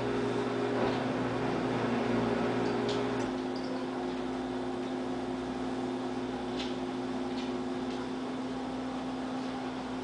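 A steady mechanical hum with a few level tones, slightly lower after about three seconds, and a few faint short clicks.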